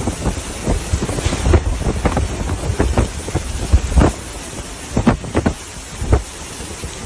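Heavy rain and strong cyclone winds making a steady rush, with frequent irregular low thumps of gusts buffeting the microphone.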